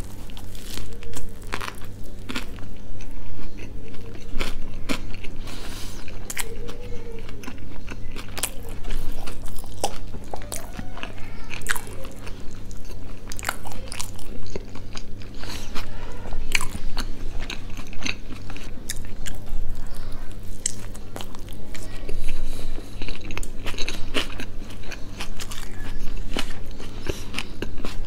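Close-miked chewing and biting of a burger: wet mouth sounds with many sharp, crunchy clicks throughout. A steady low hum runs underneath.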